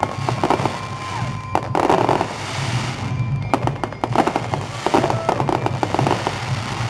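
Aerial fireworks bursting: rapid crackling and popping reports from exploding shells, coming in dense clusters about two seconds in, again from about three and a half to five seconds, and near the end.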